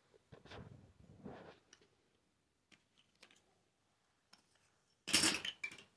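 Cardboard pogs clicking and rustling as they are picked up and handled, with a louder clatter of discs about five seconds in.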